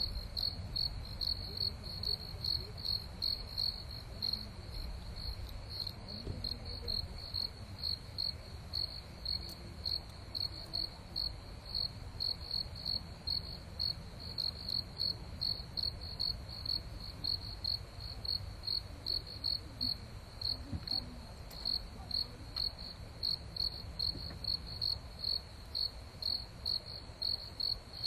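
Cricket chirping steadily: a high, even chirp repeating about two to three times a second.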